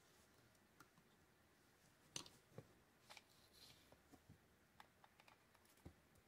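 Faint, scattered clicks and taps of a screwdriver and metal reel parts as a Shimano TLD 30 two-speed fishing reel is handled and taken apart, the loudest tap a little over two seconds in.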